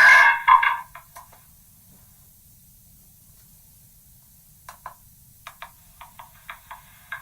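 Megaphone playback of a spoken phrase that has been re-recorded megaphone-to-megaphone so many times it has eroded into short, clipped, tinny blips. A dense stretch cuts off just after the start, then there are about three seconds of faint hiss. From about the middle, choppy bursts return and come faster toward the end.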